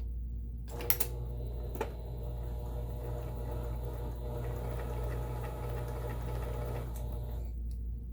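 Vintage Kenmore 17922 electronic sewing machine sewing a straight stitch, its needle going up and down steadily. It starts with a couple of clicks about a second in and stops near the end.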